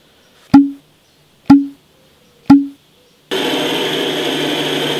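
Three sharp knocks about a second apart, each with a short low ring, as fidget spinners are set down on a wooden table. A little after three seconds in, a steady whirring starts abruptly, fitting the spinners spinning.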